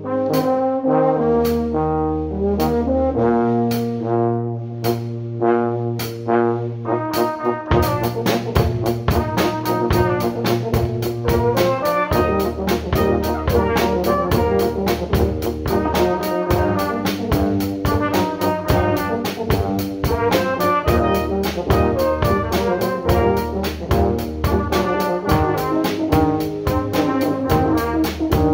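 A brass band of trumpets, trombones and tubas plays a pop-rock arrangement, with a drum kit keeping a steady beat. About eight seconds in, cymbals and the full ensemble come in and the sound becomes fuller.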